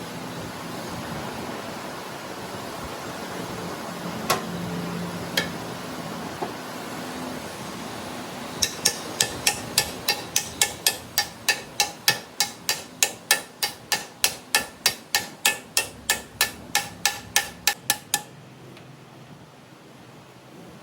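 Hammer striking metal: a few single blows, then a steady run of about three blows a second for nearly ten seconds that stops suddenly. Each blow rings.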